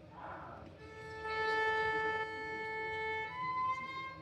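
Solo violin playing slow, long bowed notes: one long held note, then a higher note that slides up slightly about three seconds in.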